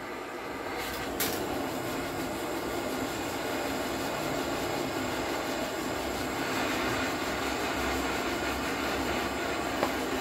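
Portable butane gas torch burning with a steady hiss as it heats a motorcycle frame to soften it for bending. There is a short click about a second in.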